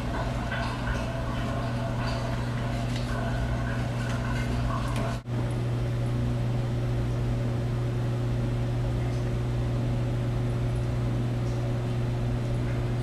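Steady low mechanical hum, with faint scattered ticks over the first five seconds from a Sheltie puppy chewing a rose. The sound drops out for an instant about five seconds in.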